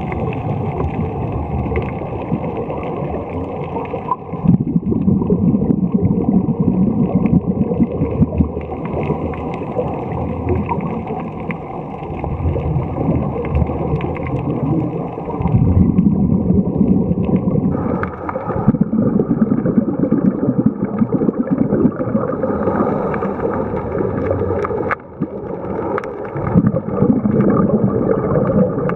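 Underwater sound of a scuba diver's regulator breathing: exhaled bubbles gurgle past the camera in surges every few seconds, over a steady low rumble of water.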